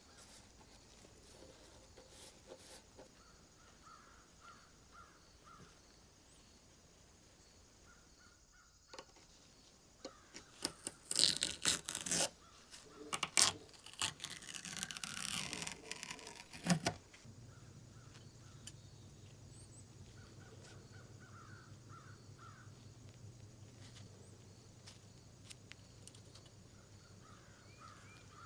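Masking tape being peeled and crumpled off steel scissor blades: a run of loud crackling, tearing noises lasting several seconds around the middle. Faint bird calls repeat in the background, and a low steady hum follows the peeling.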